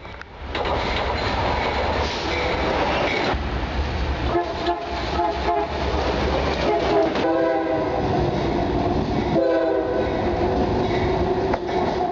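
Diesel locomotive passing close by with a heavy rumble and clatter of wheels on rail. Its air horn sounds a chord in several blasts from about four seconds in, the last two long.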